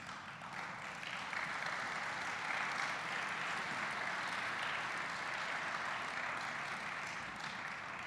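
Audience applauding, swelling up over the first second, holding steady, and fading away near the end.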